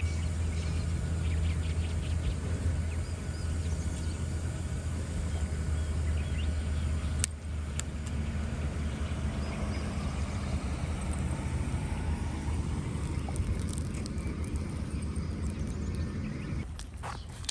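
A motor running with a steady low hum, which fades away near the end. Two sharp clicks come about seven seconds in.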